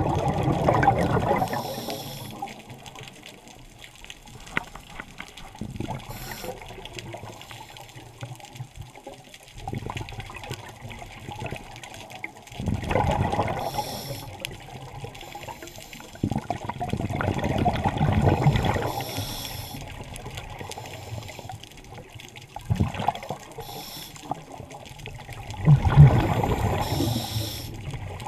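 Scuba regulator exhalations heard underwater: bursts of bubbles gurgling every few seconds, with a softer hiss between breaths.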